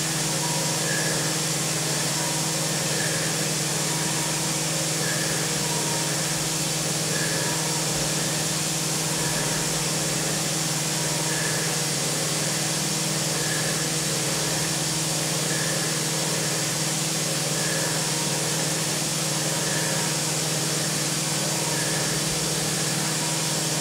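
CNC milling machine running steadily as a small end mill cuts slots in a metal mould block: an even hum and hiss, with a faint short chirp about every two seconds.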